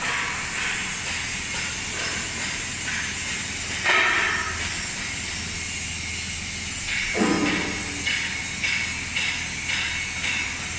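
Industrial machinery running: a steady low hum under a hiss, with two louder noises about four and seven seconds in.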